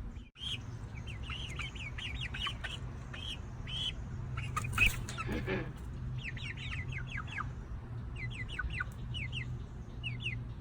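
Eight-week-old Easter Egger and Black Australorp chicks peeping in many short falling chirps as they settle to roost, with one louder squawk about five seconds in. A low steady hum runs underneath.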